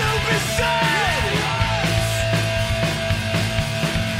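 Punk rock band playing a loud, driving song with drums and electric guitar; the guitar bends its pitch in the first two seconds.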